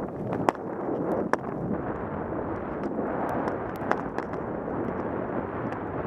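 Steady rush of wind on a helmet-mounted camera's microphone and skis running through deep powder snow. A few sharp knocks cut through, the loudest about half a second in, another just over a second in and one near four seconds.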